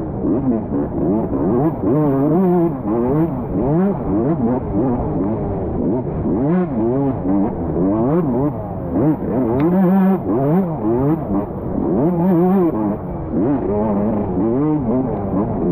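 Close onboard sound of a 125-class motocross bike's engine revving up and down over and over as it is ridden hard, its pitch climbing and dropping every second or so.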